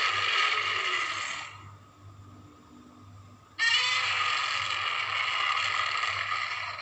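Godzilla's roar sound effect from the 1992 film, heard twice: a harsh, shrieking roar already sounding that fades out about a second and a half in, then after a short gap a second long roar about three and a half seconds in.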